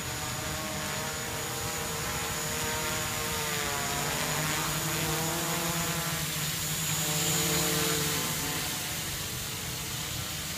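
Quadcopter with a 3D-printed frame in flight: its four electric motors and propellers keep up a steady whine. The pitch wavers up and down as the motors change speed, and the sound swells slightly about seven to eight seconds in.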